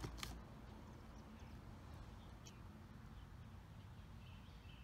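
Near silence: a couple of short cardboard taps right at the start as the box's top flap is handled, then faint background hiss with a few soft bird chirps.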